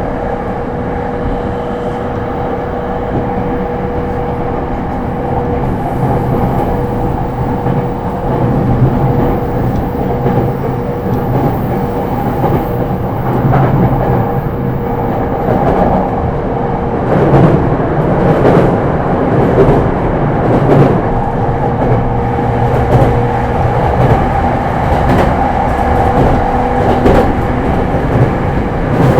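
JR East E231 series commuter electric train heard from inside the car, running along with a steady rumble and a steady whine. From just past halfway, a string of clicks and knocks sounds as the wheels cross rail joints and points.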